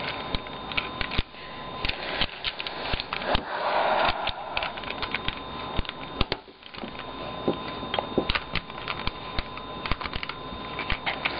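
Plastic pieces of a 3x3 puzzle cube clicking and snapping irregularly as it is put back together and its faces turned.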